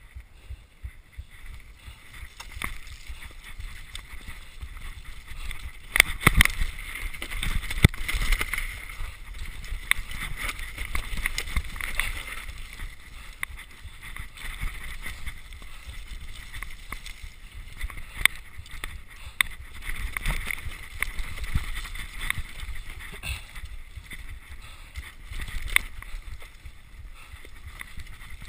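Downhill mountain bike rattling and clattering over a steep, slippery, rough track, with a steady rumble of tyres on mud and many sharp knocks from the bike. Heard through a rider-mounted camera. The hardest knocks come about six to eight seconds in.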